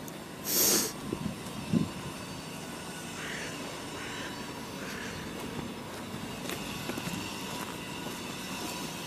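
Street traffic noise with a steady background rumble, broken about half a second in by a short loud hiss and just before 2 s by a sharp low knock.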